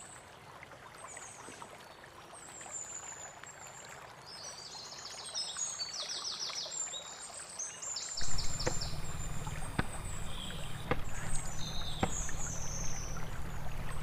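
Outdoor ambience with small birds chirping and singing quick repeated trills. About eight seconds in, a low steady rumble joins, with a few faint ticks.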